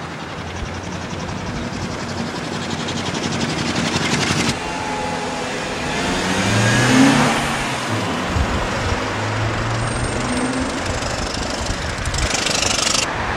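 Street traffic: veteran cars passing with a fast, even clatter from their engines, and a modern car passing close about halfway through, its noise swelling and fading. Another veteran car clatters by close near the end.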